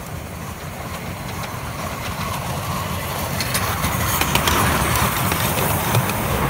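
Miniature steam locomotive, a scale LNER A4 'Sir Nigel Gresley', running past with its train of carriages: a low rumble that grows louder as it approaches, with sharp clicks and clatter from the wheels on the track as it passes close by, from about halfway through.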